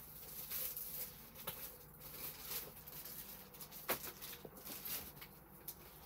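Rummaging through a bag: uneven rustling of paper and plastic with small clicks, and one sharp click about four seconds in.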